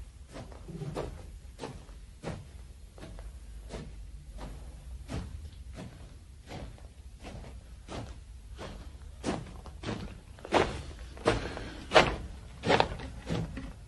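Footsteps walking at an even pace, about three steps every two seconds, growing louder over the last few seconds as the walker comes closer.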